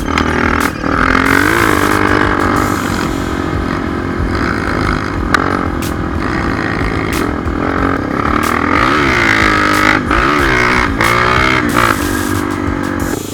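Honda XR250 Tornado's single-cylinder four-stroke engine revving up and down as it is ridden, with occasional sharp knocks.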